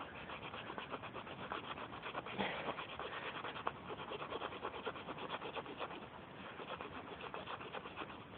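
Sandpaper rubbed in rapid back-and-forth strokes on the rubber around a tire puncture, scuffing the spot clean of oil and dirt before a patch is glued on.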